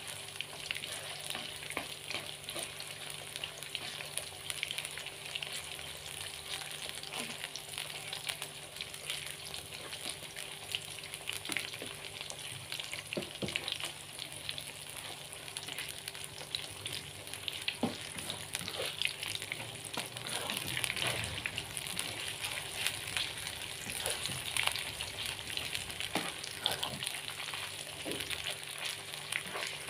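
Peeled shrimp frying in hot oil in a wok, sizzling steadily with fine crackles, while a spatula stirs and now and then knocks and scrapes against the pan.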